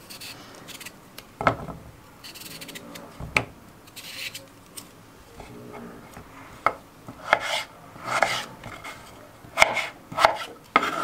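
Kitchen knife slicing a peeled raw potato on a wooden cutting board: irregular sharp knocks of the blade meeting the board, more frequent near the end, between softer rasping as the blade draws through the potato.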